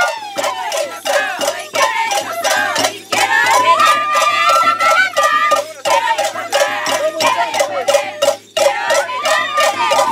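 Traditional folk music with a steady percussion beat under a melody.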